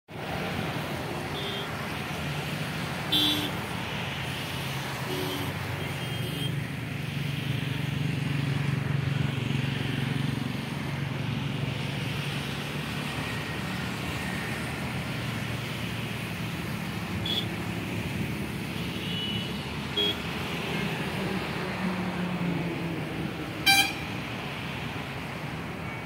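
Steady low rumble of outdoor ambience, with a few short, high-pitched calls scattered through it, the loudest near the end.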